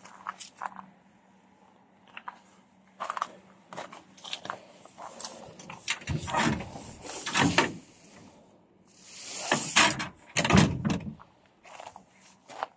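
Hinged body-side service flaps on a derelict Rocar bus being swung and handled: loose panels rattling and knocking, with two louder bouts of clattering thumps in the second half.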